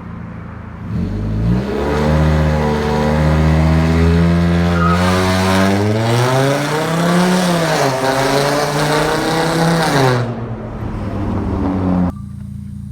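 Volkswagen Jetta 2.5 five-cylinder engine revving under launch control. The revs climb quickly and hold steady, then rise higher and fall back. Near the end they drop to a low, steady idle.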